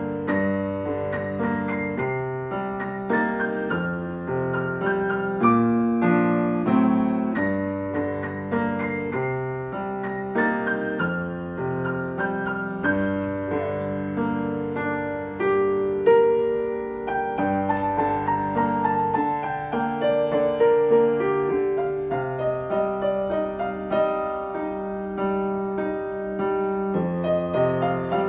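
Instrumental piano music: a continuous flow of notes over held bass notes.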